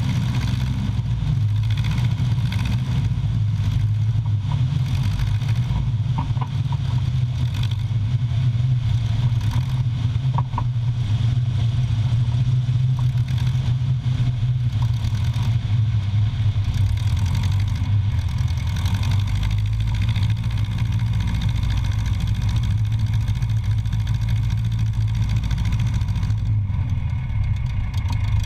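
An engine running steadily at a constant speed: a continuous low drone that does not change.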